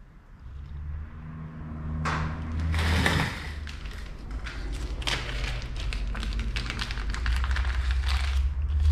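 A man drinking from an aluminium beer can, with swallowing and breathing sounds a couple of seconds in, then handling noises and light taps as the can is set down on a metal work table, over a steady low hum.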